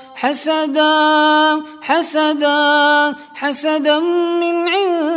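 A man's voice chanting Quranic recitation in slow, melodic tajweed style. He holds long, steady vowels and bends the pitch, with a brief pause and a hissing 's' sound roughly every one and a half seconds.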